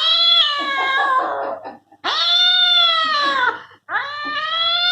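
Cat meowing from an animal sound-effects recording, in long drawn-out calls: about three in a row, each lasting a second and a half with a short gap between.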